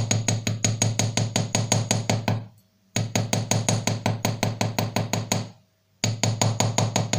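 Rapid light taps of a small watchmaker's hammer on a silver ring resting on a tiny steel anvil, about eight strikes a second. The tapping comes in three runs with brief pauses between them, as the crushed, sharp edges of the ring are worked back into shape.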